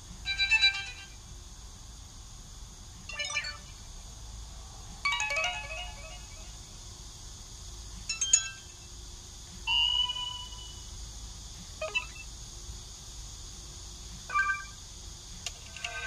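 Stock Android notification tones played one after another through a SKY Mirach phone's loudspeaker as each is selected: about eight short electronic chimes and jingles, each under a second and cut off by the next.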